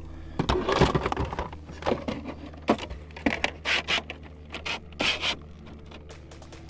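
Irregular knocks, rubs and scrapes of gear being handled on a kayak, a quick run of sharp strikes that thins out after about five seconds, over a steady low hum.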